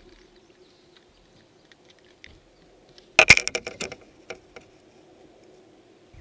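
Faint steady hum of a bow-mounted electric trolling motor, broken about three seconds in by a brief clatter of sharp metallic clicks and rattles from rod and tackle being handled on the boat deck.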